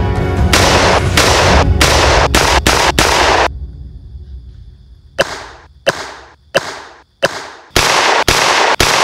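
Shotgun blasts, repeated over and over in an edited run: a rapid string of blasts, then four single blasts with echoing tails about two-thirds of a second apart, then another rapid string.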